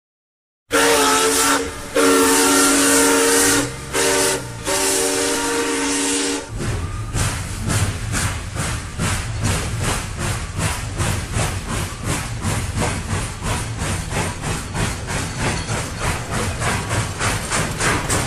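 A steam locomotive's chime whistle sounds in four blasts, then the engine chuffs in a steady rhythm of about three beats a second.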